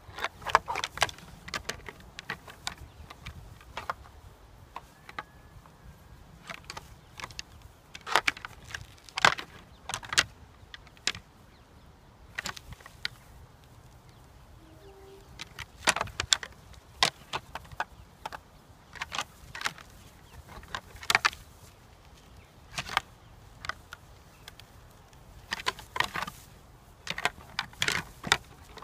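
Two fallow deer bucks fighting, their palmate antlers clashing and rattling together in irregular bouts of sharp clacks, with short lulls between bouts as they push and twist.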